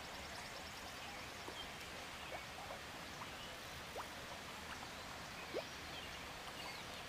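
Quiet outdoor ambience: a faint, steady hiss with a few short, scattered chirps from distant birds.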